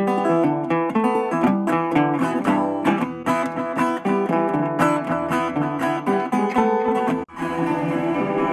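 Instrumental acoustic guitar music with quickly picked notes. It breaks off briefly about seven seconds in, then goes on with fuller, ringing strummed chords.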